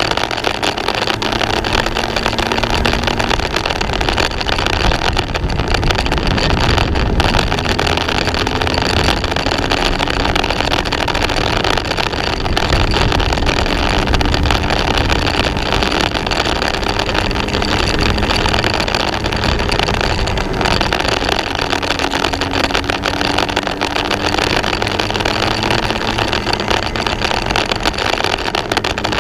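Racing kart engine running at low, gently rising and falling revs on a slow in-lap, with a steady rush of noise underneath, as heard from a camera mounted on the kart.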